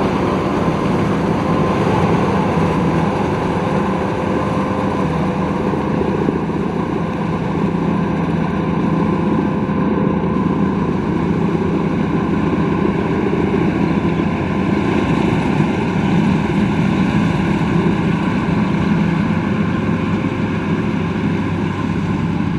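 Rice combine harvester running steadily, a continuous engine-and-machinery drone with a steady hum that holds its pitch.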